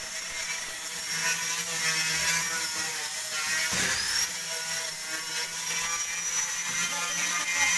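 A hand-held power tool running with a steady high-pitched whine, its pitch climbing briefly about four seconds in.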